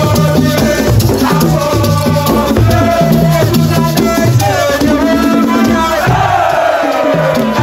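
West African music: singing over steady drumming and shakers.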